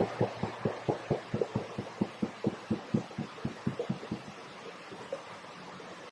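A rapid, even train of low pulses, about five a second, over a steady hiss, fading away and stopping before the end: the unexplained night-time noise that the recordist likened to a big cat's call.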